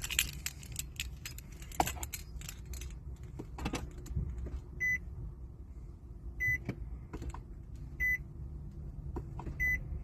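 Keys jangling and clicking for the first few seconds, then a car's short electronic beep sounding four times, evenly about a second and a half apart, with a few light clicks between the beeps.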